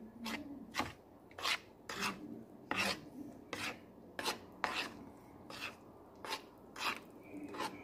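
A metal fork scraping and tapping against a white bowl while stirring powdered sugar into liquid to dissolve it, in a steady rhythm of about two strokes a second.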